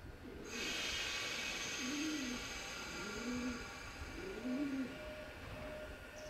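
A dove cooing: about three low, rise-and-fall coos a little over a second apart. Under it a steady hiss with faint thin tones starts about half a second in.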